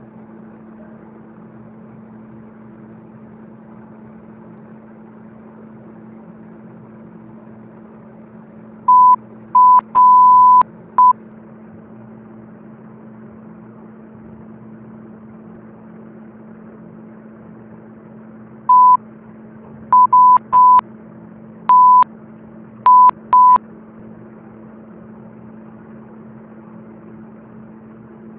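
Short, loud bursts of a pure bleep tone of the kind used to censor words: a cluster of four about nine seconds in and another of about seven from nineteen to twenty-three seconds in. A steady low hum runs underneath.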